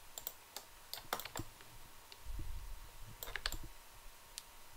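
Scattered clicks of a computer mouse and keyboard in a few short clusters, with a low dull thud a little after two seconds in.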